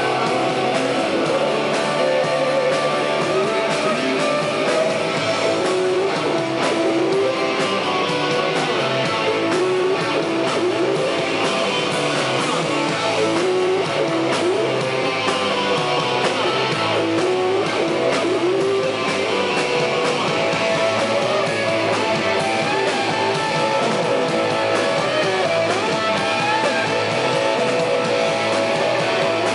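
Rock band playing live: strummed electric guitar over drums, steady and loud.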